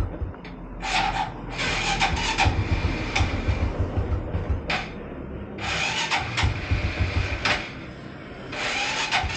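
Small motorcycle engine cranking over without catching, in repeated start attempts of a second or two each with short pauses between. The bike has sat unstarted for a long time.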